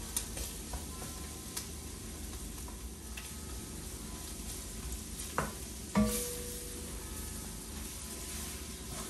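Vegetables for gumbo sautéing and sizzling in a pot while being stirred constantly with a utensil to keep them from sticking, with small scraping clicks throughout. A sharp clank with a short ring about six seconds in.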